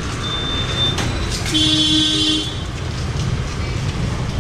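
A vehicle horn honks once, held for about a second, over a steady rumble of street traffic.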